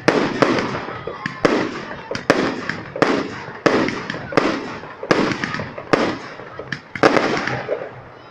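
Aerial fireworks shells bursting in quick succession, about one to two sharp bangs a second, each trailing off in a rolling echo.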